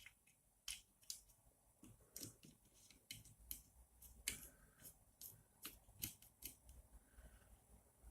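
Faint, irregular small clicks and ticks of small M3 screws and a hand tool being handled and driven while a part-cooling fan is screwed onto a 3D printer's extruder.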